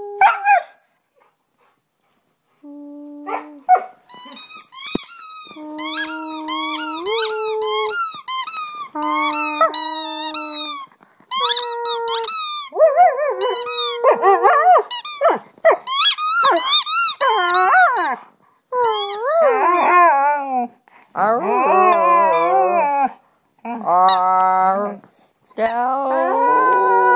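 A husky singing: a fast run of high-pitched squeaky yelps and whines, going over into wavering, gliding howls in the later part. Steady held notes, from a person making sounds along with her, run under the first half.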